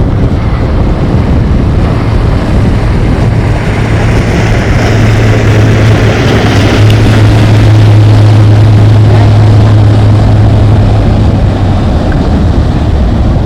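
Pontoon boat's outboard motor running steadily under way, its low hum swelling a little past the middle and easing near the end, over a steady rush of wind and water.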